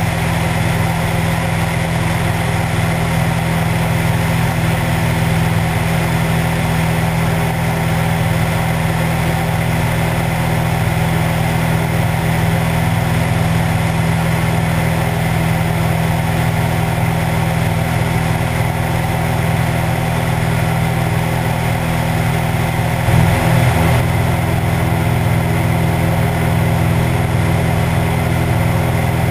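Cessna 172's piston engine and propeller droning steadily in cruise flight, with air rushing past the outside of the plane. There is one brief louder surge about three-quarters of the way through.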